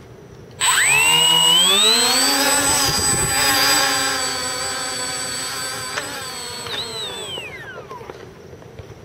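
Tricopter's electric motors and propellers whining. The pitch rises over about two seconds as the throttle comes up, holds steady, then glides down and fades near the end as the throttle is backed off. The whine cuts in suddenly, with a thin, high, steady tone running alongside.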